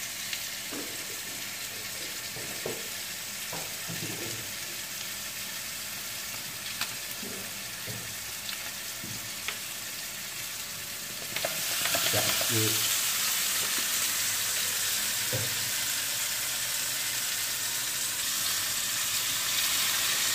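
Chicken pieces sizzling in a wok, with a few short scrapes and knocks of the spatula against the pan. The sizzle grows louder a little past halfway and stays that way.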